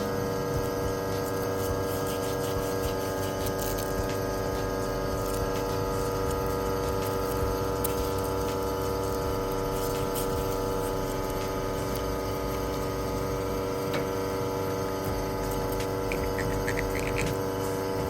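Victoria Arduino Black Eagle espresso machine's pump humming steadily while water runs through the group head, with light scattered clicks.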